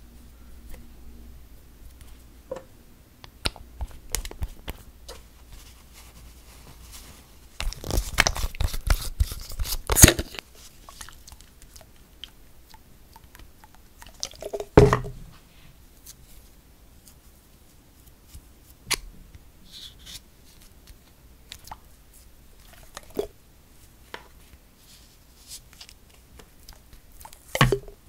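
Close-up handling of nail soak-off supplies: a dense crackling rustle for about two seconds, a sharp knock about halfway through, scattered light taps and clicks, and a sharp plastic click near the end as a soak-off clip is fitted over a nail.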